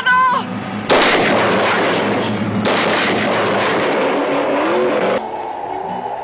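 Loud, noisy film action sound effects lasting about four seconds, with a break in the middle, cutting off sharply before background music.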